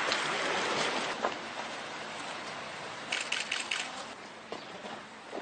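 Outdoor background noise, a steady hiss that is a little louder in the first second, with a brief cluster of sharp clicks a little after three seconds in.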